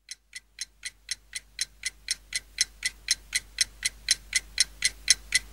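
Clock ticking steadily, about four ticks a second, growing louder, over a faint low hum.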